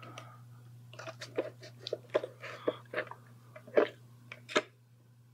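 Plastic scale-model parts being handled and fitted together: a run of light clicks, taps and rubs starting about a second in, over a faint low hum.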